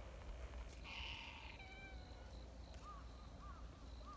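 A cat meows once, briefly, about a second in, followed later by a few short, faint chirping calls.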